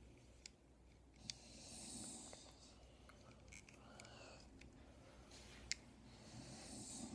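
Near silence: a child breathing softly close to the microphone, two slow breaths, with a few faint clicks as rubber bands are handled on the loom.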